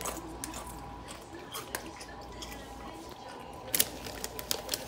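A foil snack bag of Doritos crinkling and crackling as a hand reaches inside, the crackles thickest near the end, with scattered lighter clicks before.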